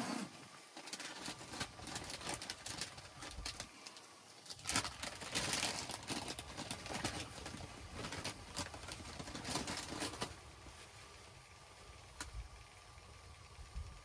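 Rustling and light clicks of hands and clothing as a person handles things at a camp table, busiest about five seconds in and dying down after about ten seconds.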